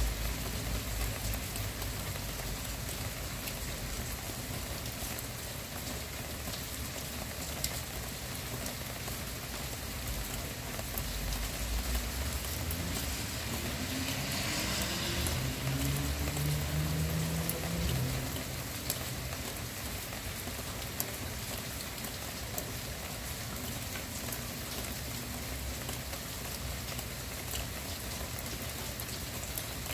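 Steady rain falling on surfaces, a constant hiss with scattered drop ticks. Through the middle a low rumble swells, with a hum that rises in pitch and then fades.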